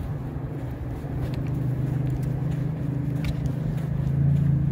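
A motor vehicle's engine hums at a steady low pitch, growing louder over the first couple of seconds and then holding.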